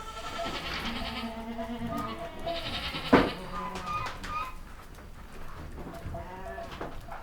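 Several goats bleating, their calls overlapping one another, with one sharp knock about three seconds in.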